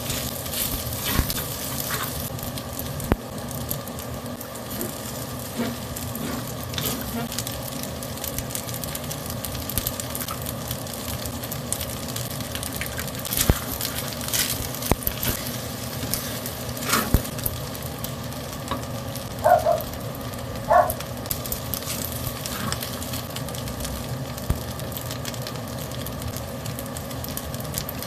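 Rice sizzling as it is stir-fried in a metal wok, with a wooden spatula scraping and knocking against the pan now and then. Two short squeaky notes come about twenty seconds in.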